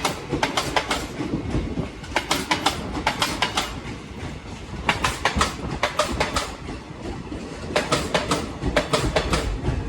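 Train wheels clattering over rail joints: groups of sharp clicks about every two and a half seconds over a steady low rumble.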